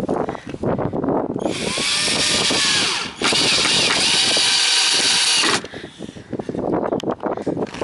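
Power drill driving a screw into a wood board in two runs, starting about a second and a half in, with a brief break about three seconds in, and stopping at about five and a half seconds. The motor whine shifts in pitch as the screw bites. Crackling handling and rustle noise comes before and after the runs.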